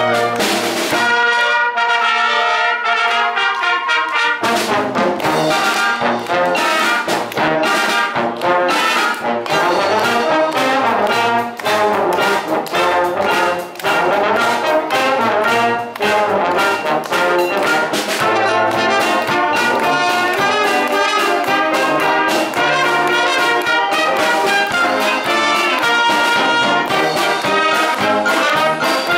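Wind band playing live, brass to the fore with trumpets and trombones. The low instruments and beat come in about four seconds in, after which the full band plays on.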